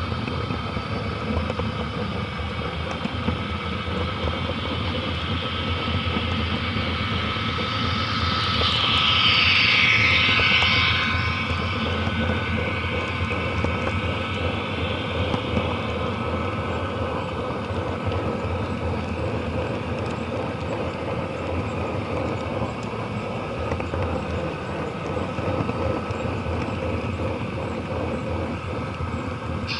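Model freight train running around a layout, heard from a car in the train through an action camera's waterproof case: a steady rumble of wheels on the track with motor hum. About eight seconds in it turns louder and brighter for a few seconds, then settles back to the steady run.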